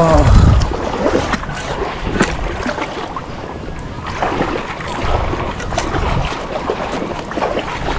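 Outdoor river noise: flowing river water with wind buffeting the microphone in low gusts, strongest right at the start and again around five to six seconds in.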